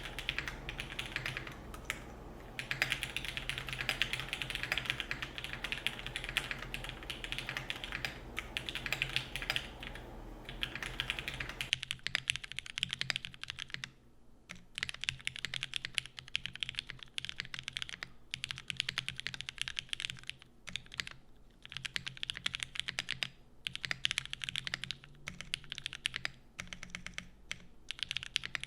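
Continuous typing on a custom gasket-mount 65% keyboard (SL65) with Cherry MX Black linear switches on a full polypropylene plate, GMK keycaps, and a polycarbonate top with aluminium bottom case: rapid keystrokes with a few brief pauses.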